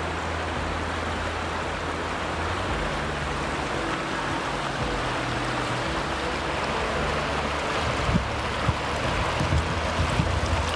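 River water rushing steadily over shallow, rocky rapids, with a few low thumps on the microphone near the end.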